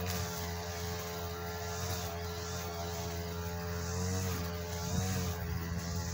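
A steady low droning hum with a held tone that wavers slightly in pitch.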